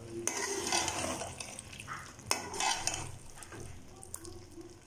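A metal spoon stirring thick potato curry in a metal cooking pot, scraping and clinking against the pot, with a couple of sharper clinks about a third of a second in and again past the two-second mark.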